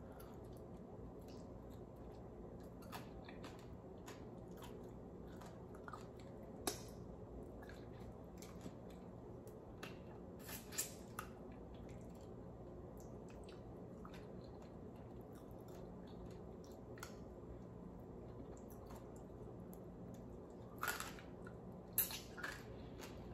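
Quiet close-up eating sounds of a person chewing fried whole fish in sauce and picking at it with the fingers, with scattered short mouth and finger clicks. A few louder clicks come near the middle and a couple near the end.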